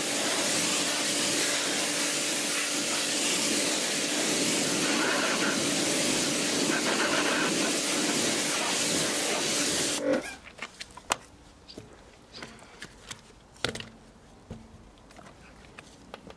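Pressure washer lance spraying water hard into the inside barrel of an alloy wheel for its final rinse: a loud, steady hiss with a low hum under it. The spray cuts off suddenly about ten seconds in, and a few knocks and clicks follow.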